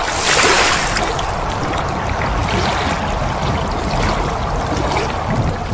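A stock sound effect of rushing, splashing water: a steady wash that swells slightly about half a second in.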